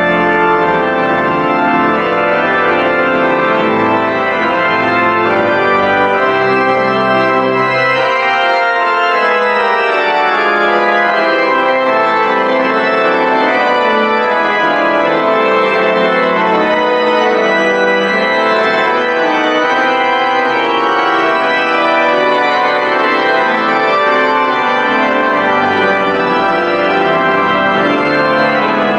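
Harrison & Harrison pipe organ of Cirencester Parish Church played loudly in a full-textured improvisation, many sustained notes sounding together. The deep pedal bass drops out about eight seconds in and returns near the end.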